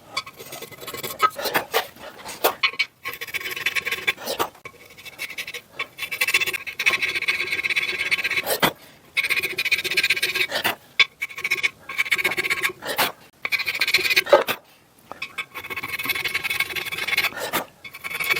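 Hand file rasping in quick repeated strokes, in runs of a few seconds with short breaks between, as a small metal letter is shaped by hand.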